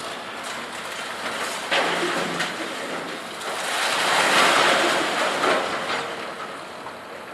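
Scrap metal banging and crashing as a front loader handles it: a sharp bang a little under two seconds in, then a long clattering crash that swells and dies away around the middle, with scattered clanks.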